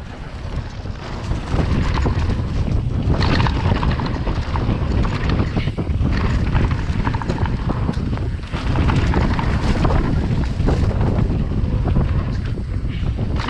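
Wind buffeting the microphone over the rattle and knocks of a mountain bike riding fast down a dirt downhill track, getting louder about a second and a half in.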